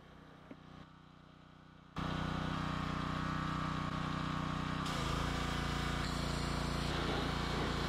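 Small gas engine of a pressure washer running steadily, starting abruptly about two seconds in after a quiet stretch. About five seconds in its sound shifts, with more low rumble, as the spray wand is put to use.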